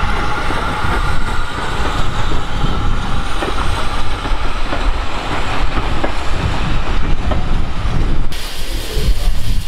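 Vintage wooden-bodied passenger carriages of a steam-hauled train rolling past, their wheels clicking over the rail joints. The sound changes abruptly near the end.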